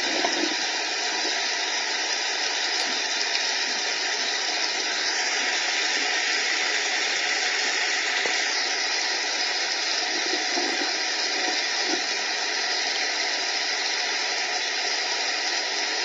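Sustained applause from a large standing audience, an even clapping that does not let up, heard through a screen's speaker.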